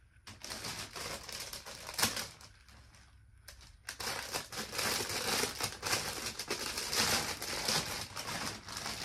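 Clear plastic poly bag crinkling as it is handled and opened to take out a garment. The crinkling comes in two stretches, a short one and then a longer, louder one after a brief pause.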